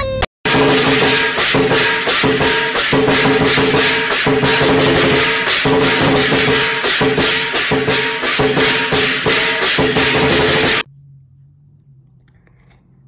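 Background music with a steady beat, which cuts off suddenly near the end and leaves a faint low hum.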